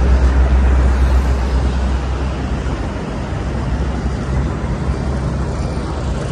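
Wind buffeting the microphone with a low rumble, over a steady wash of sea and road-traffic noise; the rumble is strongest in the first couple of seconds, then eases a little.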